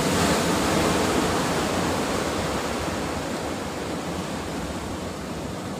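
Rough sea surf surging and breaking against shore rocks: a steady rushing wash of water that eases slightly toward the end.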